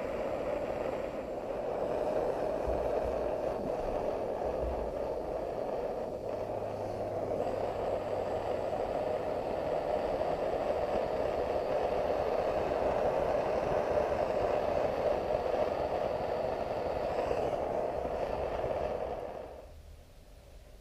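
Handheld butane torch flame burning steadily with a hiss, heating heavy-gauge copper battery wire for soldering; it cuts off suddenly about a second before the end.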